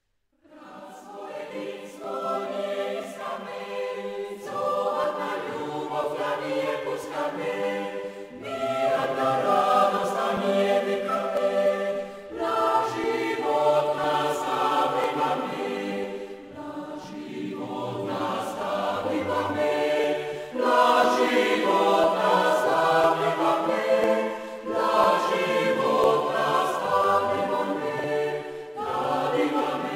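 A choir singing a slow song in phrases of about four seconds each, beginning about half a second in.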